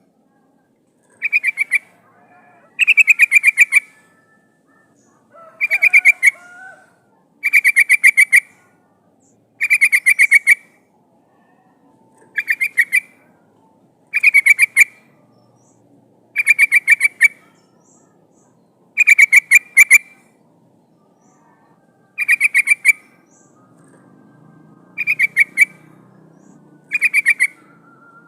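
Yellow-vented bulbul calling: short bursts of rapid, bubbling notes repeated about every two seconds, the kind of call used to lure wild birds of its kind.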